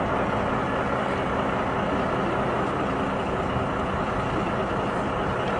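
Mercedes-Benz concrete mixer truck's diesel engine running steadily.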